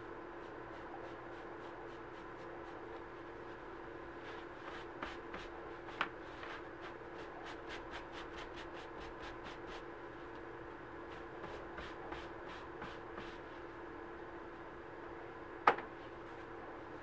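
Light, quick dabbing and rubbing of a dye-soaked paper towel on a small leather key chain, coming in runs of soft taps, over a steady low hum. A single sharper knock sounds near the end.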